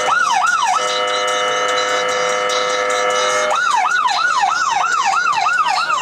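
Electronic siren. It opens with a fast up-and-down yelp, then switches to a steady blaring horn tone for about three seconds, then goes back to the yelp at about three cycles a second.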